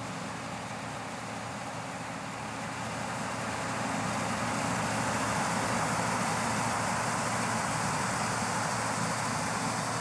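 A 1991 New Holland TR86 combine harvester running steadily while it harvests corn, its engine and threshing machinery making a steady drone that grows louder about four seconds in.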